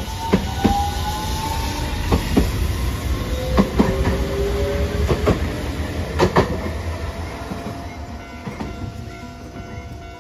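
Hiroden Green Mover APEX low-floor tram running past with a low rumble and a slowly rising whine, its wheels clacking sharply over the rail joints several times. The sound fades away in the last few seconds.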